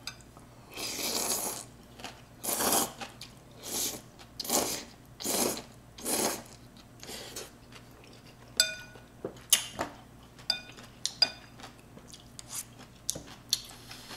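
Ramyeon noodles slurped in a series of sucks, about six in the first six seconds. From about eight and a half seconds in, a metal spoon and wooden chopsticks tap and clink against a glass bowl in quick light strikes, some ringing briefly.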